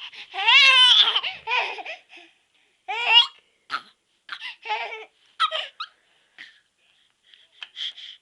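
Baby laughing and squealing in high-pitched bursts: a long one about half a second in, then several shorter ones.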